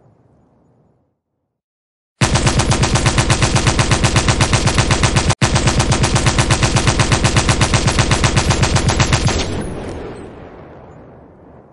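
Machine gun firing one long, rapid burst of evenly spaced shots lasting about seven seconds, with a split-second gap about halfway through. Its echo then dies away over about two seconds. Before the burst, the tail of earlier fire fades to a moment of silence.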